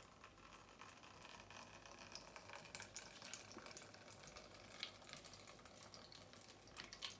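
Water being poured into a moka pot's coffee basket and trickling through a cotton-pad filter: a faint, irregular patter and crackle of small drops.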